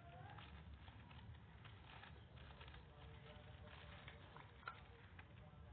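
Faint rustling and small clicks of a squishy's plastic packaging being handled and opened, with one sharper click about four and a half seconds in.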